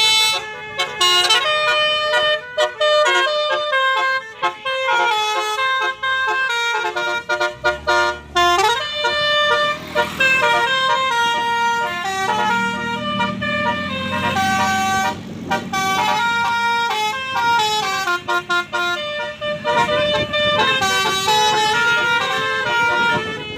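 Telolet musical bus horn playing a melody: a quick run of stepping horn notes, rising and falling in short phrases with brief breaks between them.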